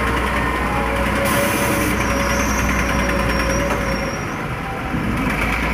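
Heavy diesel engine of a tractor working a sand and gravel pile, running loudly and steadily. A short hiss comes about a second in.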